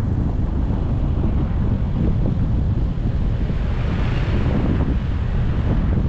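Wind buffeting the microphone of a camera on a moving car, a steady low rumble, with a brief hiss swelling and fading about four seconds in.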